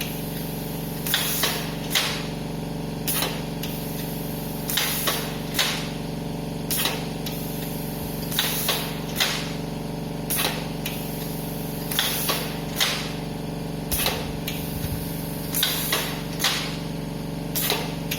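Pneumatic cup screen-printing machine cycling, its air cylinders letting out short sharp hisses, loosely in pairs about every two seconds. Under them is the steady hum of the machine's air compressor.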